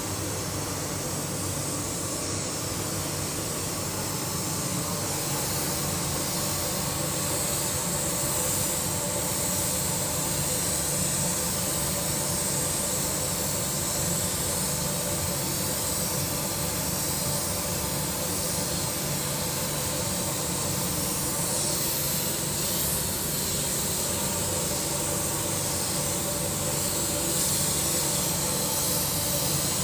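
Steady air hiss of spray painting in a paint booth: a compressed-air spray gun and the booth's ventilation running together, with a steady mechanical hum underneath and no breaks.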